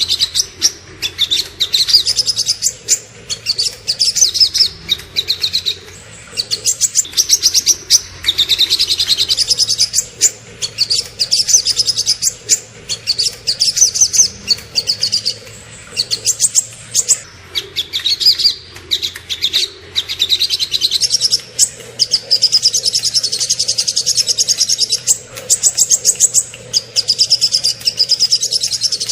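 Small songbirds singing loud, shrill, rapid-fire bursts of high notes in phrases of a second or two, broken by short pauses: the fast 'tembakan' song used as masteran for training caged songbirds.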